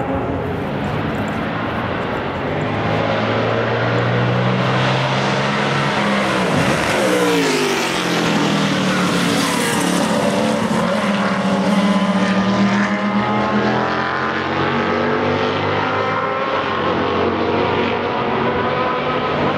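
Historic sports racing cars' engines running hard on track. About seven seconds in, one car passes close by with a sharp fall in pitch, and other engines carry on steadily through the rest.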